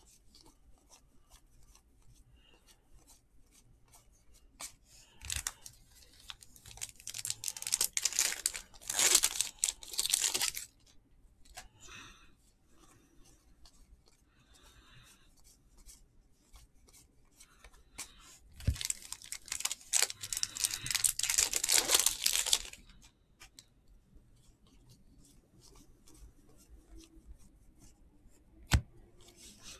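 Trading-card pack wrappers being torn open and crinkled, in two rips a few seconds long, about a fifth and about two thirds of the way through. Light ticking of card handling comes between the rips, and there is one sharp click near the end.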